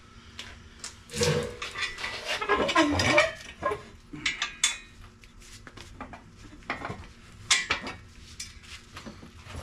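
Metal clanking and rattling of tools and steel parts being handled, a busy burst of knocks in the first few seconds, then a few single clinks.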